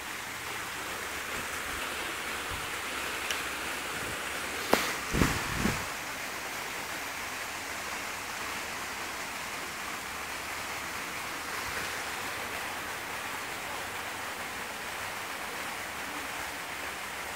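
Small waterfall cascading over rocks: a steady rushing hiss of falling water. A few brief low thumps sound about five seconds in.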